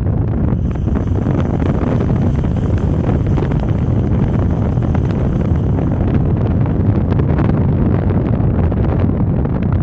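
Wind buffeting a microphone held outside a moving Lexus ES330, over the car's steady road noise, with faint scattered clicks mixed in.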